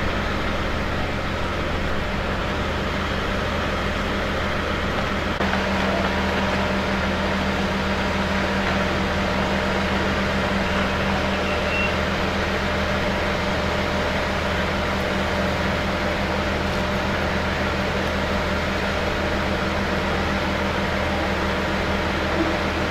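An engine running steadily: a constant low drone with an even hiss over it, its hum growing slightly stronger about five seconds in.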